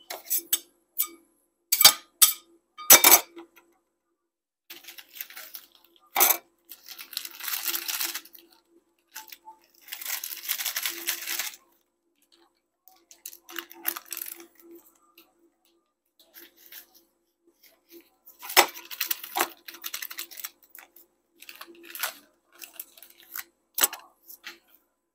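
Steel scraper spatulas clinking and knocking on a steel ice cream roll cold plate, in separate sharp strikes, with two longer stretches of crinkling and tearing as peanut butter cup packaging is opened and the cups unwrapped.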